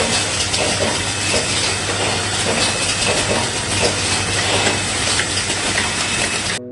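Automatic bottle-capping machine on a plastic-jug production line running: a steady machinery hiss with a dense clatter running through it, cutting off abruptly just at the end.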